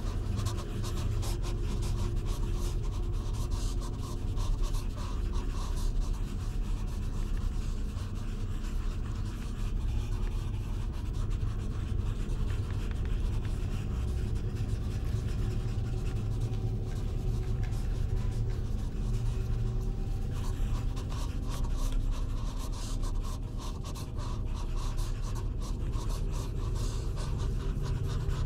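Steady low droning hum with a fine scratchy crackle over it, a sustained ambient drone from a horror film's sound design.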